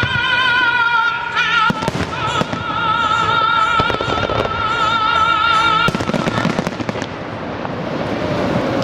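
Fireworks bursting and crackling over the show's music soundtrack, which holds one long wavering note that cuts off suddenly about six seconds in. The bangs and crackle carry on after the music stops.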